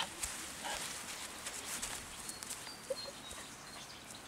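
Quiet rural outdoor ambience: a faint steady hiss, with short high bird chirps repeating from about two seconds in.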